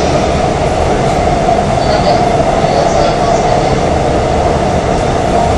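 Korail 3000-series (70s batch) electric multiple unit running between stations in a tunnel, heard from inside the passenger car: a loud, steady rumble of wheels on rail with a constant mid-pitched hum.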